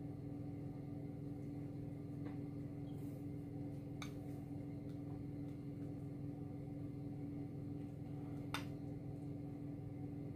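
Steady low hum of room or appliance noise, with three faint clicks of a metal spoon against a glass bowl and muffin tin as filling is spooned into pastry cases.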